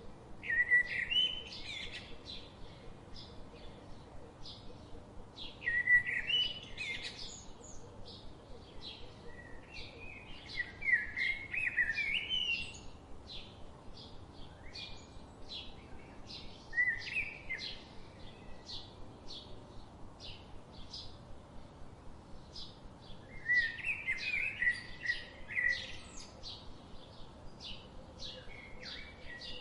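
Songbirds singing: warbled song phrases come every few seconds over a steady run of short, high chirps repeating several times a second.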